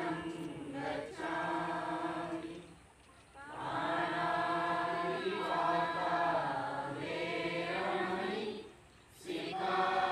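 A large group chanting together in unison, a Buddhist devotional chant in long drawn-out phrases, with brief pauses for breath about three seconds in and again near the end.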